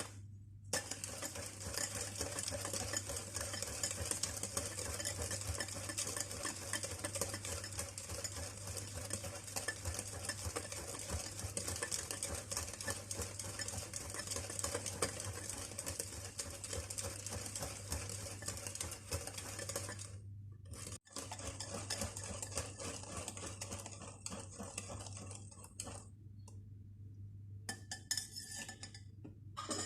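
A utensil stirring a wet mixture in a bowl, with quick continuous clinks and scrapes against the bowl; it pauses briefly about 20 s in and turns stop-and-start near the end.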